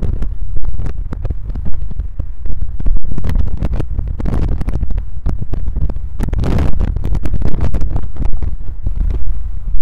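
Electronically processed road-trip audio: a car's road and wind rumble, slowed down, looped and layered, as a dense low rumble that flickers with rapid pulses. It swells twice, a little before the middle and again past it.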